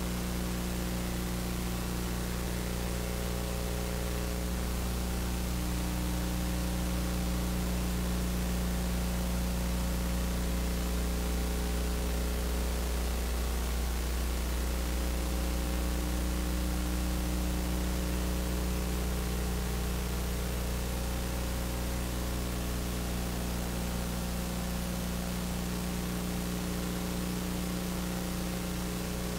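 Steady hiss with a low electrical mains hum, the noise of an open audio feed with nothing else on it.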